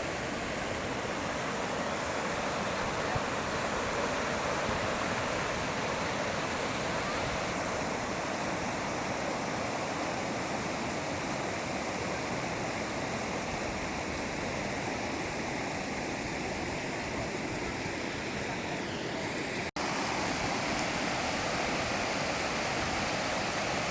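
Waterfall pouring into a pool: a steady, unbroken rush of falling water. It cuts out for an instant once, near the end.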